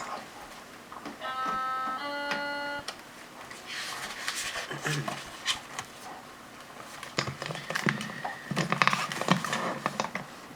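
Two held electronic tones, one straight after the other, each lasting under a second, the second set lower than the first. Rustling and handling clicks follow, with soft voice sounds.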